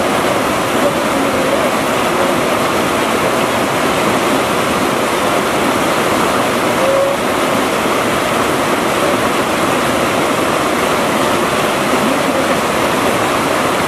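Rapids of a rocky mountain river rushing steadily over boulders, a constant, unbroken roar of white water.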